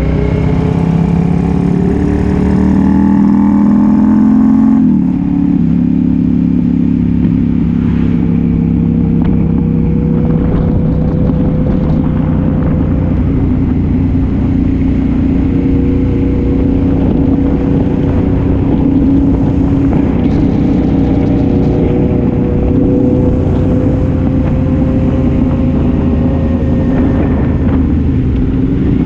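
Sport motorcycle with an aftermarket exhaust, riding: the engine note climbs under acceleration for about five seconds and drops sharply at a gear change, then holds a steady cruising note that rises and falls slightly, over a steady low rush.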